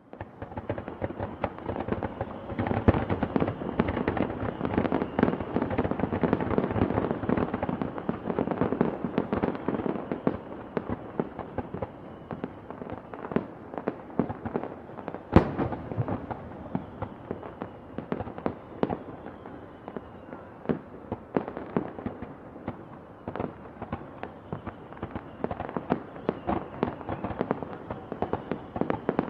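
Many fireworks and firecrackers going off at once, a dense run of bangs and crackling, busiest for the first ten seconds, with one especially sharp, loud bang about halfway through.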